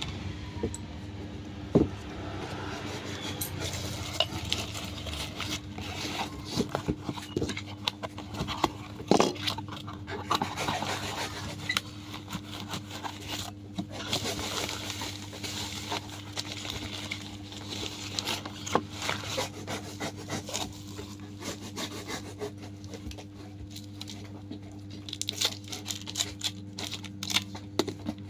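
Drinking glasses and their packaging being handled: scattered taps, light clinks and rubbing or scraping sounds, over a steady low hum.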